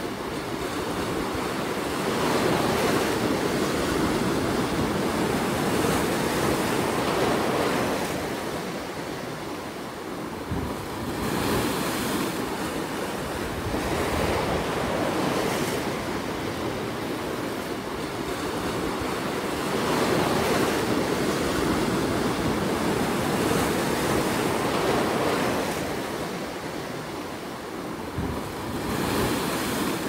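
Ocean surf breaking and washing over rocks along a rocky shore. It is a continuous rush that swells and eases with each wave, with a brief lull about ten seconds in and another near the end.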